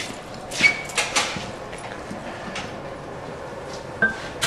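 Hot Damascus steel billet handled at the anvil: a few scattered metal clanks, one with a short ring. About four seconds in, the first strokes of scraping the scale off the billet begin.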